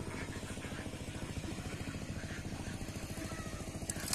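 A small engine running steadily at idle, a fast, even low pulse.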